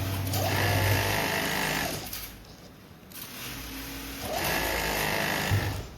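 Industrial sewing machine stitching denim in two runs of about two seconds each, with a short pause between. Its motor speeds up at the start of each run.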